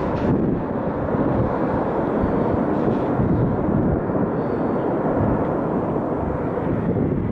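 Steady roar of Blue Angels F/A-18 Hornet jet engines, a dense low rumble.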